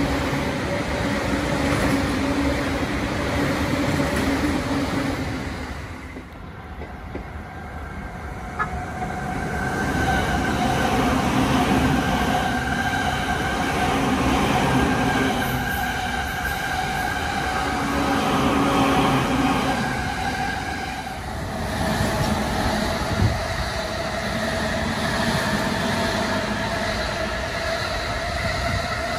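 Electric trains running past on the tracks below, one after another: the rumble of wheels on rail with steady humming tones. The sound dips briefly about six seconds in, then builds again with a new train.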